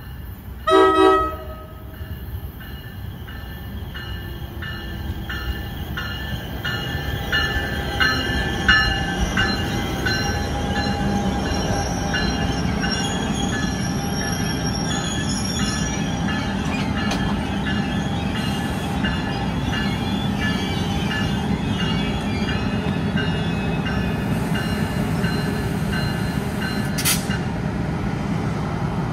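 NJ Transit Bombardier ALP-45DP locomotive No. 4510 and its push-pull coaches passing close: a short horn blast about a second in, then the train's rumble builds and holds as it goes by. Wheels click over the rail joints in a steady rhythm, with one sharp click near the end.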